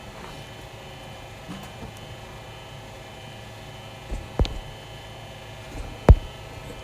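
A steady electrical or machine hum, with two loud, heavy thumps in the second half.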